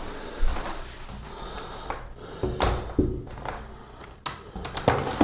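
Handling noise: scraping and a series of separate knocks and clunks, as of a metal wall mount and hand tools being picked up and moved, over a low steady rumble.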